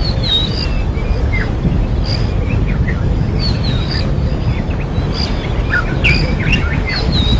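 Wild birds chirping with many short whistled and sliding calls, busiest near the end, over a steady low background rumble.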